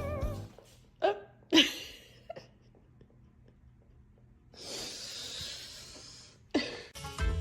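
Two short hiccup-like sounds about half a second apart, then a breathy hiss lasting about two seconds, and another short sound near the end.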